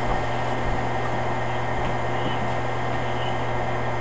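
Audichron STM-100M-T talking time-and-temperature machine running between announcements: a steady low electric hum with an even mechanical running noise from its turning drum mechanism.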